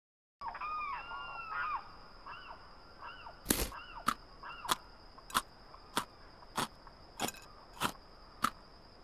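Small birds chirping in short rising-and-falling calls, busiest in the first couple of seconds, over a thin steady high whine. From about three and a half seconds in, sharp clicks come evenly about every 0.6 s, the first one the loudest.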